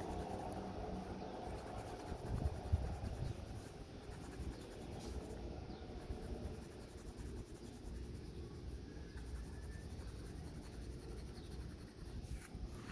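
Faber-Castell Ecolápis neon coloured pencil scratching steadily on paper as a circle is shaded in.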